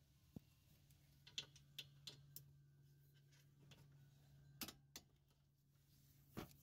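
Faint, sharp metallic clicks at irregular intervals from a ratchet wrench turning a brake caliper bracket bolt, over a faint steady low hum.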